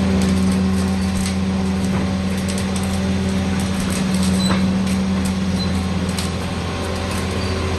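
Caterpillar 336D excavator's C9 diesel engine running at a steady speed, with scattered light clicks and rattles over it.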